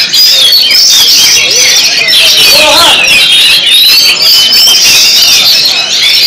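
Many caged songbirds singing at once: a dense, unbroken chorus of rapid chirps and trills, with faint crowd voices underneath.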